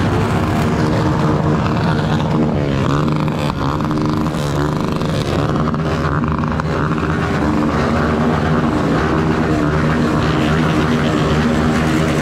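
Motorcycle engines of a slow-moving convoy running together, the rider's own bike loudest. A few seconds in, the engine notes rise and fall as throttles are worked.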